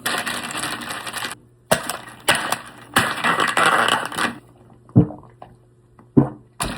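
Chewing and biting into a breaded fried chicken tender: several bursts of crunching over the first four seconds, then a couple of short sharp clicks.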